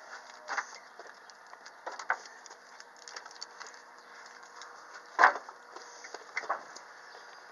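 A young calf sucking milk from a teat bucket: irregular clicks and knocks, the loudest about five seconds in.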